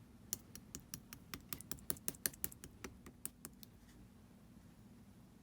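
Clear slime being pressed and poked by hand, giving off a quick, irregular run of sharp popping clicks that stops about three and a half seconds in.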